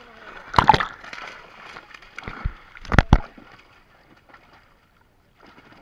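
Water splashing as fish thrash in a fishing net drawn up in shallow water, with three loud splashing thuds, about a second, two and a half and three seconds in.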